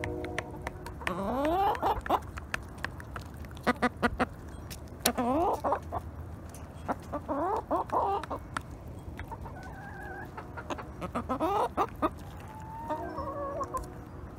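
Hens clucking as they feed, with short rising calls every few seconds. Throughout, their beaks tap sharply and often on the plastic feed pan as they peck the mash.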